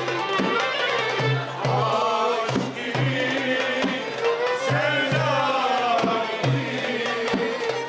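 A Turkish restaurant band playing live: a melody line with sliding notes over a steady hand-drum beat.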